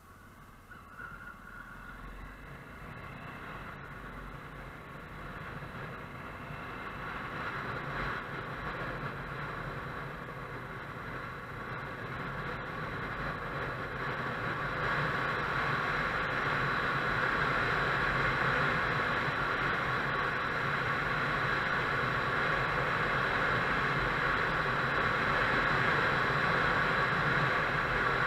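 Motorcycle riding, with engine and wind noise building steadily over the first half or so as it gathers speed, then holding steady.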